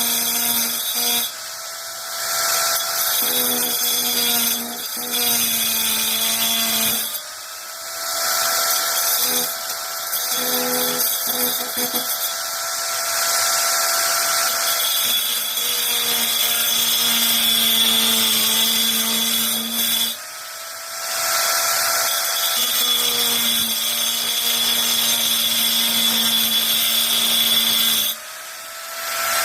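Titanium AG710 710-watt angle grinder running and grinding, a steady motor whine with a loud hiss. Its sound drops off briefly four times.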